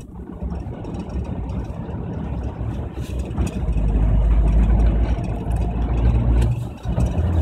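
1998 Suzuki Jimny 1.3's four-cylinder petrol engine running as the car is driven. The engine note grows louder and deeper about three and a half seconds in, then drops away briefly near the end. The car has a rough-idle and stalling fault, with revs that rise by themselves.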